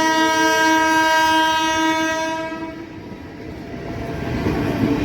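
Indian Railways train horn sounding one long, steady blast that stops nearly three seconds in, followed by the rumble of a train running on the track.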